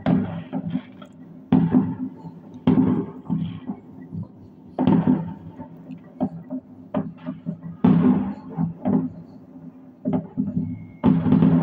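Fireworks going off over the surrounding apartment blocks: a loud bang every couple of seconds, each trailing off in an echo, with smaller pops between them.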